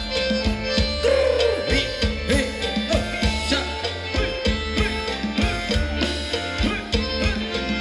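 Live Thai ramwong dance music from a band, with a steady, even drum beat under sustained melodic tones.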